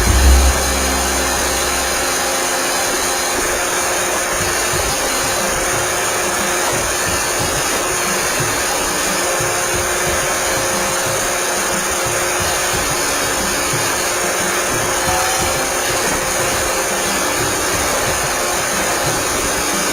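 iRobot Roomba 620 robot vacuum running, its suction motor and brushes giving a steady whir. A low rumble fades out in the first two seconds.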